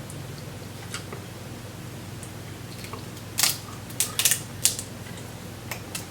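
Snow crab shell being cracked and snapped apart by hand: a quick run of sharp cracks midway through and one more near the end, over a low steady hum.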